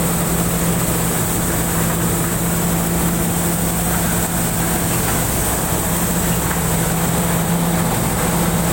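Rice combine harvester running steadily while harvesting: engine and threshing machinery with a constant low hum and a steady high whine.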